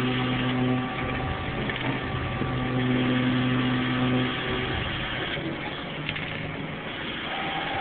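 Machine-shop machinery running steadily, with a low motor hum that comes on twice, briefly near the start and for about two seconds in the middle.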